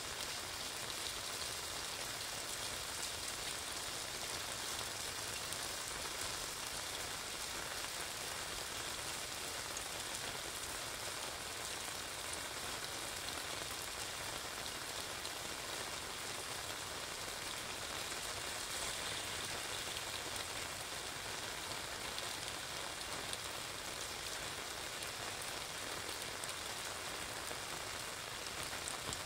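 Steady rain falling on an umbrella overhead and on the wet street, an even, unbroken hiss of drops.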